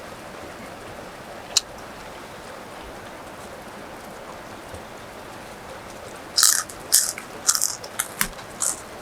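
Steady hiss of rain, with a single sharp click about a second and a half in. From about six seconds in, a run of loud crunchy bites and chewing of crisp food.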